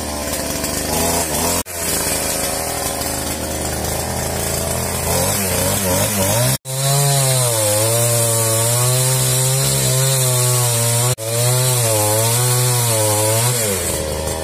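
Chainsaw running and cutting wood, its engine pitch dipping and rising under load. The sound breaks off abruptly three times.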